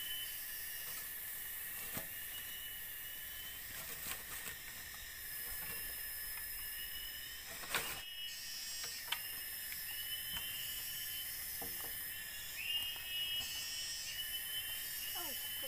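Night forest ambience: a steady high insect chorus with repeated short chirps, and a few sharp ticks such as drips.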